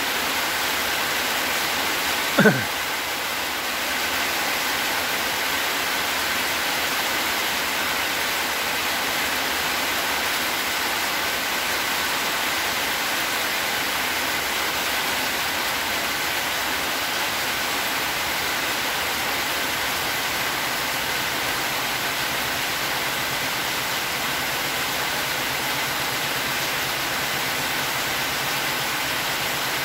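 A steady, even hiss with a short, sharp sound falling quickly in pitch about two and a half seconds in.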